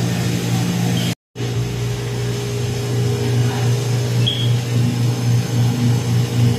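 Steady low electrical hum with a slight pulsing, typical of the compressors and fans of refrigerated display cases. The sound cuts out for a moment about a second in.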